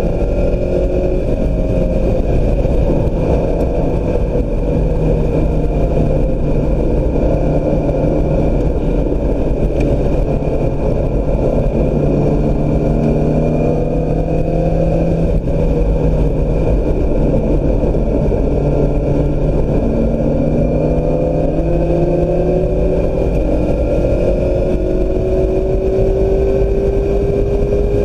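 2016 Mazda MX-5 Miata's four-cylinder engine under hard driving, its pitch climbing and falling again and again as it accelerates, shifts and slows, over a steady rush of road and tyre noise.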